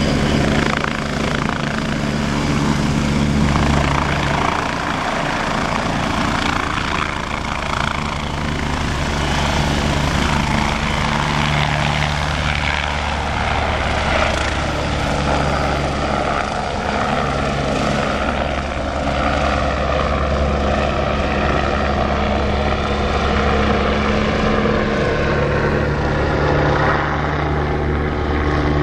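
MBB Bo 105 helicopter running at close range, its main rotor and turbine engines giving a loud, steady sound as it hovers and flies past.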